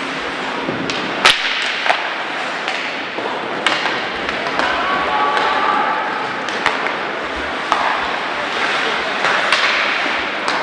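Ice hockey play: sharp cracks of sticks hitting the puck and the puck striking the boards, about six times, the loudest about a second in, over steady rink noise.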